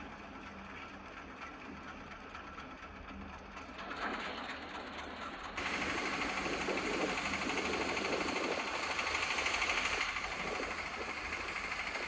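A small boat's motor running steadily under a rushing hiss of moving water. About five and a half seconds in, the hiss abruptly gets louder and brighter and stays so.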